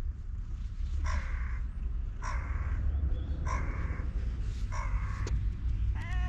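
A crow cawing four times, about a second and a quarter apart, with harsh, rasping calls. Near the end the stray cat starts a meow that bends downward in pitch. A steady low rumble runs underneath throughout.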